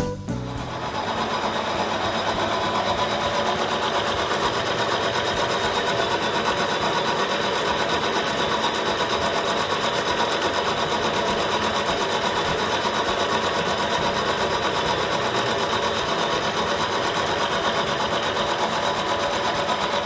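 Vertical milling machine's face mill cutting across a solid aluminium block: a steady machining sound with a fast, even rhythm that holds constant throughout.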